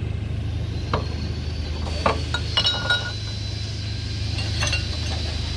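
Metal gearbox parts and hand tools clinking against each other in a few short, sharp clinks, with a quick cluster near the middle, over a steady low hum.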